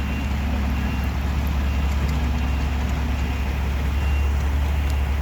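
Diesel engines of heavy road-demolition machinery (excavator, loader and trucks) running with a steady low drone, with faint short beeps of a backup alarm now and then.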